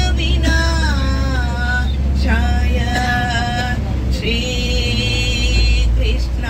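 Women singing a Hindu devotional song (bhajan) into a handheld microphone, with gliding lines and long held notes, over the steady low rumble of the moving bus.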